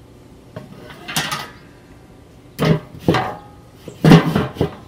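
Kettle grill lid being handled and set down on the bowl: a few metal clunks and knocks, the loudest near the end.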